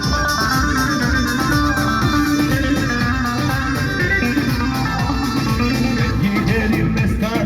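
Instrumental break of a Turkish folk song played by a live wedding band: a plucked string instrument carries the melody over a steady beat.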